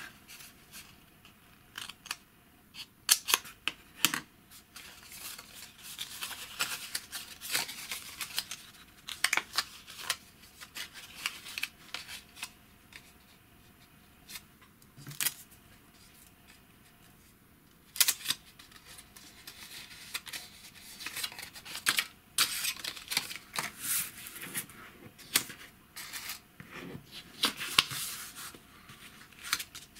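Scissors snipping thick graph paper, then the paper being handled, folded and creased against a cutting mat. Many short, sharp snips and crinkles, with a quieter gap about halfway through.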